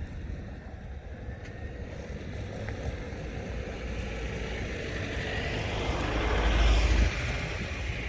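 A motor vehicle passing close by, its rumble building steadily to a peak near the end and then falling away.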